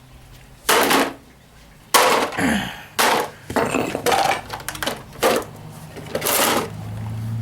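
Repeated hard blows on the casing of a battery backup power supply as it is bashed to break it open: about six sharp clattering impacts, roughly a second apart, some ringing briefly.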